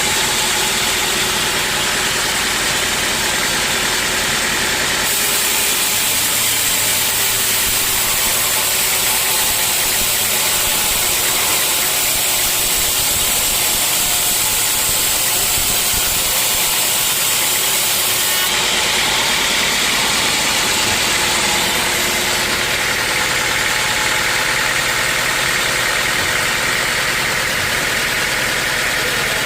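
Sawmill machinery running steadily and loudly. A brighter, hissing layer comes in about five seconds in and drops away around eighteen seconds.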